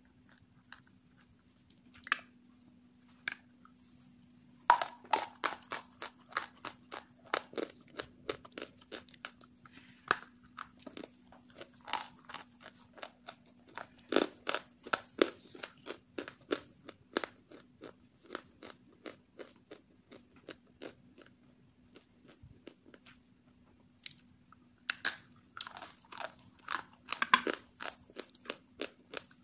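Hard, half-roasted grey clay being bitten and crunched: sharp, crisp cracks in quick runs, sparser for a few seconds past the middle, then a dense run near the end.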